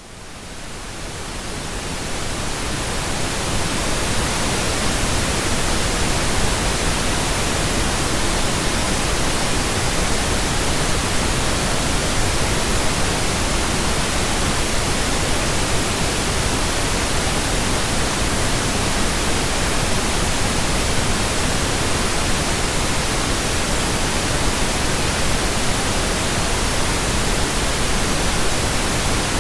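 Steady synthetic pink noise, an even hiss across all pitches, fading in over the first few seconds and then holding level.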